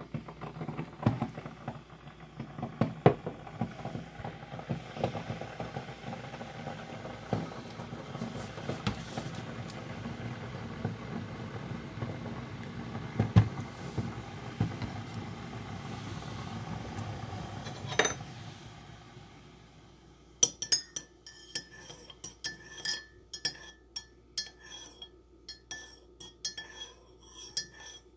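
Keurig single-cup coffee brewer running a brew: a steady running noise with scattered clicks as hot water goes into the mug, ending with a sharp click about 18 seconds in. After a short lull, a metal spoon stirs the coffee, clinking quickly and repeatedly against the ceramic mug.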